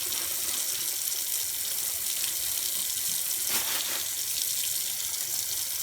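Kitchen tap running steadily into a sink, with one brief knock or splash about three and a half seconds in.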